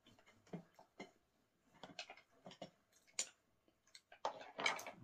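Eating sounds at a table: scattered light clicks and taps of a knife, spoon and wooden bowls, with a short rustle near the end.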